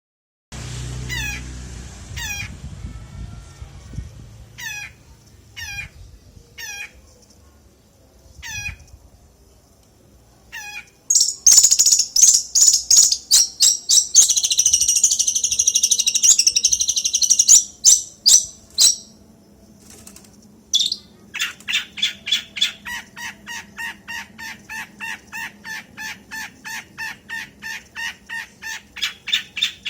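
A songbird singing: first a string of separate high whistles, each sweeping downward, then from about eleven seconds in a loud, fast, high trill lasting several seconds, and from about twenty-one seconds a long run of quick repeated notes, about three a second.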